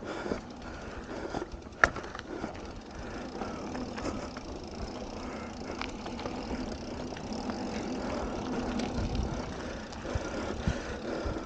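Mountain bike riding down a dirt trail: a steady rushing noise of tyres rolling over packed dirt, with clicks and rattles from the bike over bumps and one sharp knock about two seconds in.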